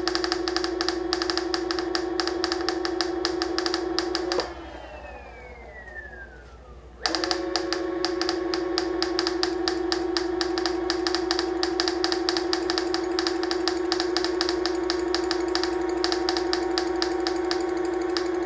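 Onewheel Plus hub motor spinning its wheel off the ground, a steady whine with a fast rattling tick over it: the rattle the owner is trying to cure, which he says develops into a squeak. About four seconds in the drive cuts out and the pitch falls as the wheel coasts down, then it suddenly picks back up to speed a couple of seconds later.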